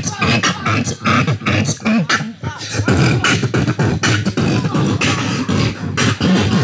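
Beatboxing through a handheld microphone and portable speaker: a fast, steady run of mouth-made kick and snare hits and clicks.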